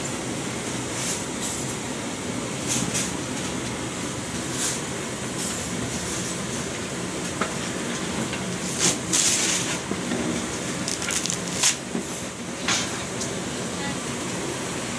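Steady rushing of gas burners and frying oil, with scattered short clatters and scrapes as meat is stirred with a wooden paddle in a large aluminium pot.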